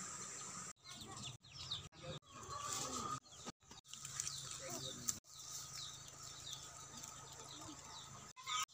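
Faint bird chirps and chicken clucking over a steady high-pitched drone. The sound cuts out completely for a moment several times.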